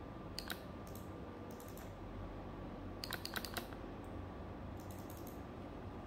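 Keys being typed on a computer keyboard in short, sparse bursts: a couple of keystrokes about half a second in, a quick run of several about halfway through, and a few more near the end, over a faint steady hum.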